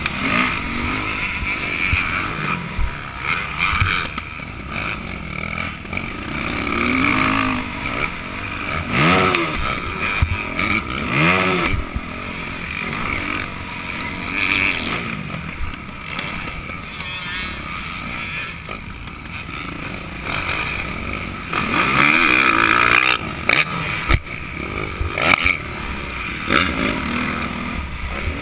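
Motocross dirt bike engine revving hard and backing off repeatedly as it is ridden around a track, its pitch rising and falling with each burst of throttle, over steady rushing wind noise. A few sharp knocks cut through now and then.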